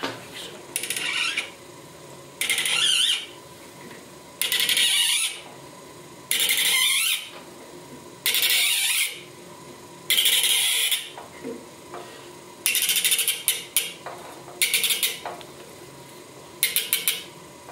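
An 8 mm tap cutting a thread in brass as the lathe chuck is turned by hand: a bright metallic scrape in short strokes, nine of them, about one every two seconds.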